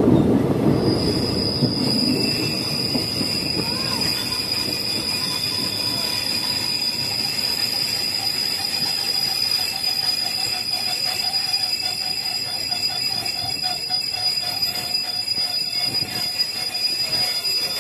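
Passenger train slowing as it runs into a station: a steady high-pitched squeal as it brakes sets in about a second in and holds to the end, over a rumble of wheels that dies away early on.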